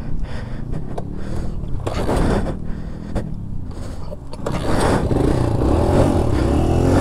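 Dirt bike engine running at low revs, then revving up and pulling away about four and a half seconds in.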